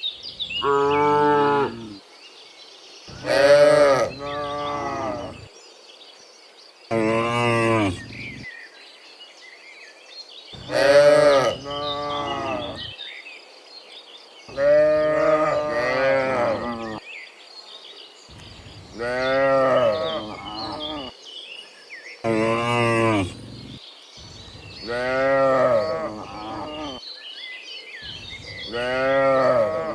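Cattle mooing, one long, drawn-out moo after another every three to four seconds.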